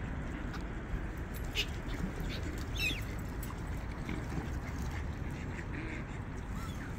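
A few short waterbird calls, the clearest about three seconds in, over a steady low background rumble.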